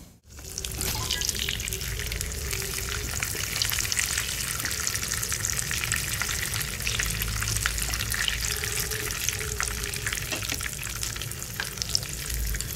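Chicken patishapta shallow-frying in hot oil in a nonstick pan, giving a steady sizzle thick with fine crackles. A wooden spatula nudges it in the pan.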